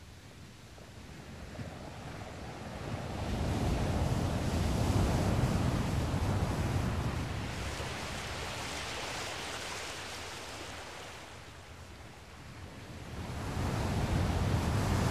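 Waves washing in the shallows: a rushing noise that builds over the first few seconds, eases off, and swells again near the end.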